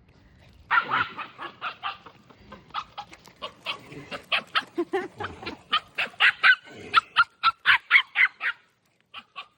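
Dog barking in a fast run of short, sharp barks, about four or five a second. The barks start about a second in and stop shortly before the end, and a few more follow after a brief pause.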